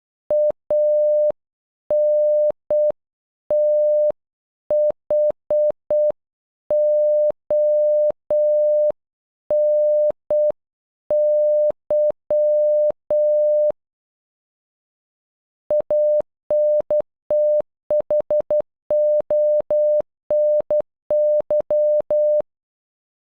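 A pure electronic tone of about 600 Hz keyed on and off as Morse code, spelling ANTHONY (.- -. - .... --- -. -.--) slowly at half speed. After a pause of about two seconds the same word is spelled again at normal speed, in quicker dots and dashes.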